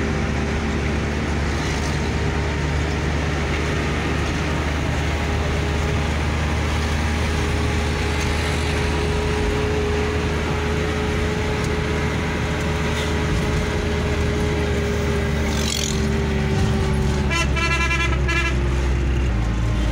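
Hino truck's diesel engine running steadily with road noise, heard from inside the cab while cruising. A horn sounds briefly near the end, in a quick pulsing run of tones.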